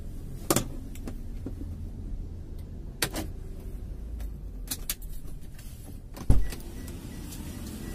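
Low steady rumble inside a stationary car's cabin, broken by a few clicks and knocks. One heavy, deep thump about six seconds in is the loudest sound.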